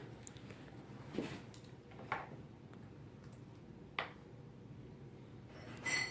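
A few light knocks and clicks of toy pots, lid and utensils being handled, four short sharp ones spread over several seconds against quiet room tone.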